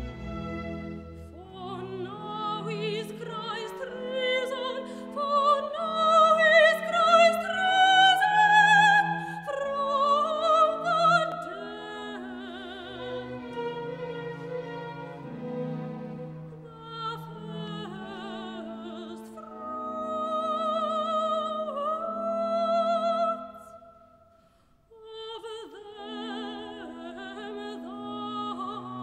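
Soundtrack music: an operatic voice singing a melody with wide vibrato over an orchestra with strings. The music fades almost to nothing about 24 seconds in, then comes back.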